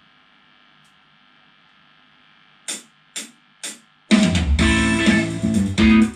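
Faint steady hum from an amplified sound system. Then three evenly spaced clicks about half a second apart, like a count-in, and on the next beat a loud guitar and bass backing track starts through the loudspeakers.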